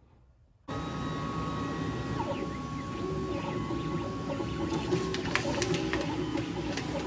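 VariQuest cutout machine running as its carriage travels across a sheet of yellow cardstock: a steady mechanical whir that starts abruptly under a second in, with a thin high whine that stops about five seconds in, followed by a few clicks.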